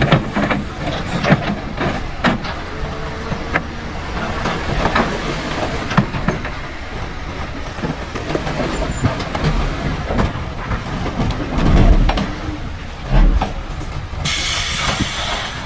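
Heavy diesel earthmoving machinery running, with repeated clanks and knocks of metal and rock, and a burst of air hiss lasting about a second and a half near the end.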